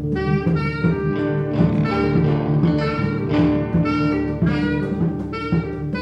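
Improvised experimental jazz: a reed instrument plays a line of short notes that keep changing pitch, over sustained low tones from the rest of the ensemble.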